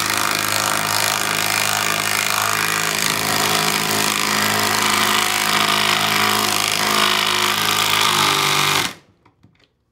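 Cordless impact driver with a socket hammering a lag bolt through a wooden bracket into a wooden post: a loud, steady, rapid rattle with a running hum. It stops suddenly about nine seconds in.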